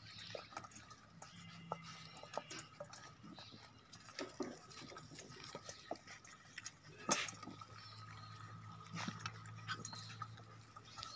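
Doberman puppies lapping and slurping from stainless-steel bowls: a run of small irregular wet clicks and laps, with one sharper click about seven seconds in, over a low steady hum.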